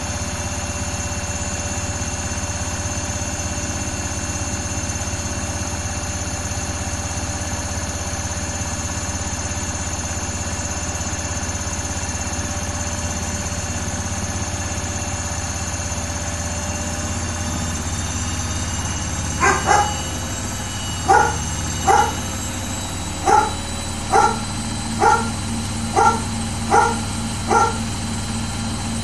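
Samsung WW80J5555FWEU washing machine running a Daily Wash 40°C programme, a steady hum with a thin high whine. About two-thirds of the way through, a dog starts barking, a run of single barks roughly one a second that stand out above the machine.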